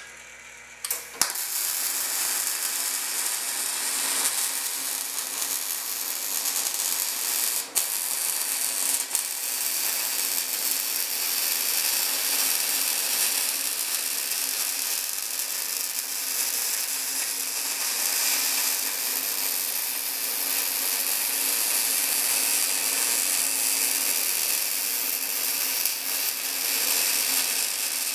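Boa308i bore welder's MIG arc, running short-circuit transfer with .035" wire, striking about a second in and then crackling steadily as the rotating torch lays weld inside a small bore.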